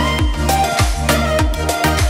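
Background music with a steady beat and a deep kick drum.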